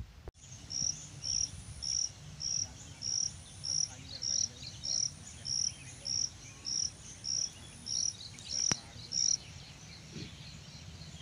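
An insect, cricket-like, chirping: a high chirp repeated evenly about every 0.6 s, roughly fifteen times, stopping a couple of seconds before the end.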